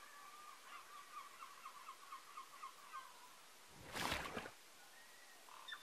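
A bird calling in a fast run of short repeated notes, about four or five a second, which stops about three seconds in; about a second later a brief loud burst of noise.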